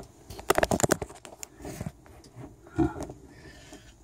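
Handling noise of a phone being moved and pulled out of a tight space among foam blocks: a quick run of knocks and rubbing in the first two seconds, then quieter scuffing.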